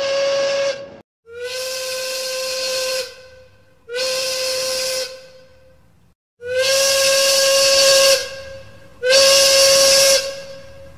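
Steam locomotive whistle blown in five short blasts on one steady note, each starting with a slight rise in pitch and trailing off into a fading hiss of steam.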